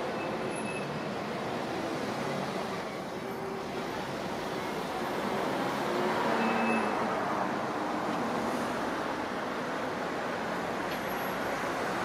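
Matterhorn Gotthard Bahn narrow-gauge trains moving slowly through the station: a steady rolling rumble mixed with street traffic, swelling a little just past the middle.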